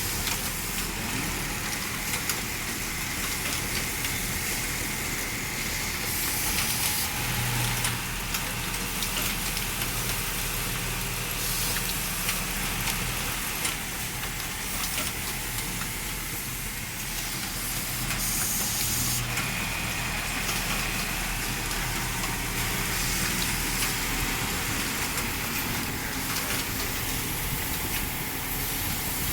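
Belt-driven machine running steadily: a continuous mechanical drone with a broad hiss over it, a faint high tone coming and going.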